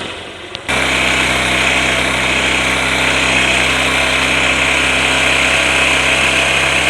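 Hero Hunk's 150 cc single-cylinder four-stroke engine running steadily at a raised idle of about 3000 rpm, during carburettor air-screw adjustment. It turns abruptly louder a little under a second in and then holds an even, unchanging note.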